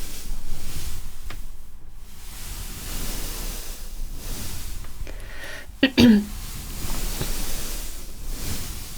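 Sea waves washing in, the hiss of the surf swelling and fading about every four seconds. About six seconds in, a short, loud sound falling in pitch cuts through.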